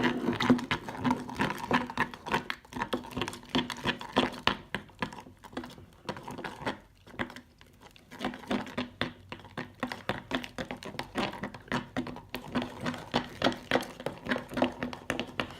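A stirrer scraping and tapping in a bowl as glue and shaving cream are mixed, a quick, uneven run of clicks that pauses briefly about seven seconds in.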